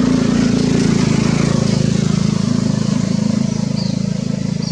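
Small engine running steadily, a low, even hum with a fast pulse in it. A short high chirp sounds near the end.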